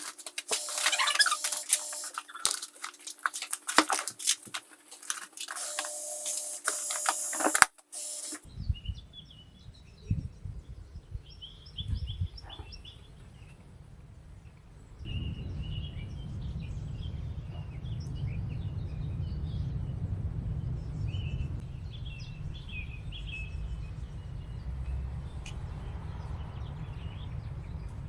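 A run of sharp clicks and rustling, cut off abruptly about 8 seconds in. It is followed by outdoor ambience: small birds chirping over a steady low rumble that grows louder about halfway through.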